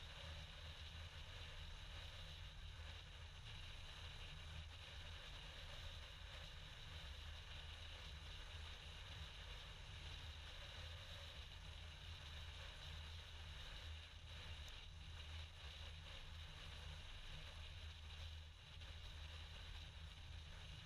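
Near silence: a faint, steady low hum with hiss, room tone without any distinct event.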